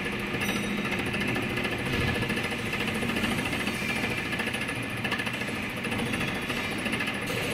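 Vertical milling machine with a fly cutter milling flats on a threaded steel shaft: a steady, rapid series of cutter strikes over the running spindle.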